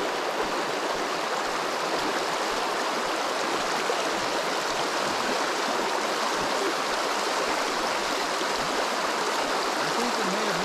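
Shallow river riffle running over rocks: a steady rush of water.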